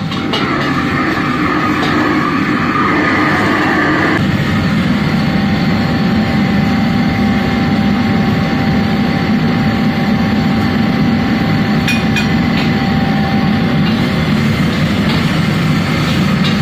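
Commercial gas wok burner running with a loud, steady low rush, with vegetables sizzling in the hot wok. About four seconds in the higher sizzle fades and the low rush grows stronger, and a few light ticks of the ladle on metal come near the end.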